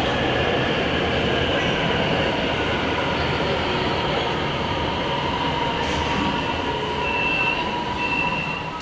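Fuzhou Metro train running: a steady rail rumble with a high, steady whine, and sharper high tones coming through near the end.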